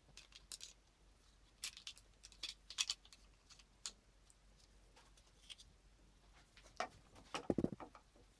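Faint scratchy clicks and ticks of a cross-country ski binding plate being handled and marked on the ski, with a few duller knocks near the end.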